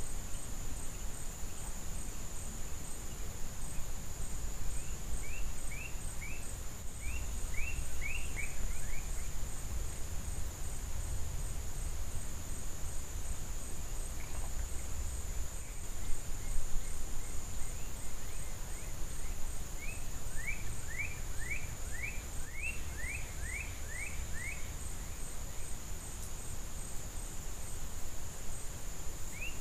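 Outdoor insect chorus, a steady high-pitched drone throughout, with a songbird twice singing a quick series of down-slurred notes, and a low rumble underneath.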